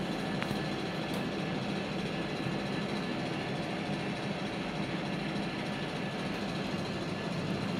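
Steady background machine noise: a low hum with hiss, unchanging throughout.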